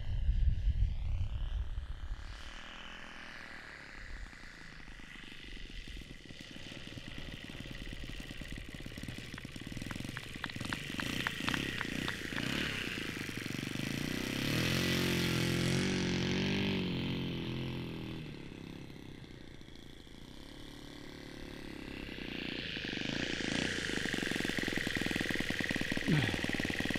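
Laser 80 four-stroke glow engine of a 1/5-scale RC model plane running at low throttle through landing and the rollout and taxi on grass. It rises in loudness as the model passes close around the middle and again as it taxis toward the listener near the end.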